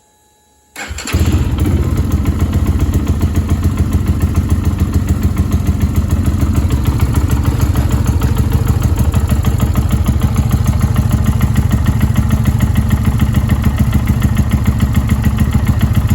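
Lifan KPR 200 motorcycle's single-cylinder engine starting about a second in, catching at once, then idling steadily with an even, rapid beat. It is being run to circulate fresh oil just after an oil change.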